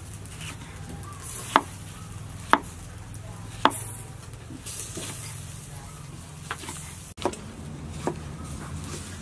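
Kitchen knife slicing tomatoes on a wooden chopping board, the blade knocking on the wood with each cut: three sharp knocks about a second apart, then lighter, more spread-out taps.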